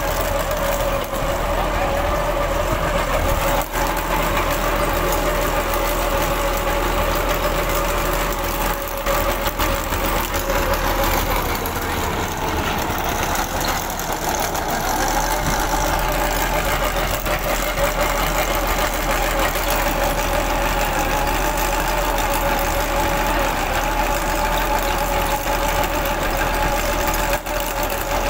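Tractor diesel engine running steadily under load as it drives a trencher's digging chain through soil. A steady whine dips in pitch about halfway through, then comes back higher.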